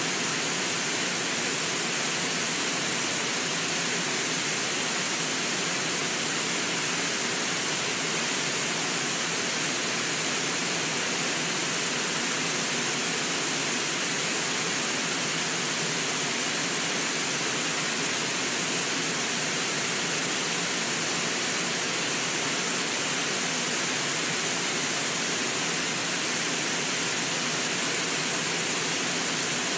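Fast, shallow river rushing over rocky riffles: a steady, unbroken rush of water.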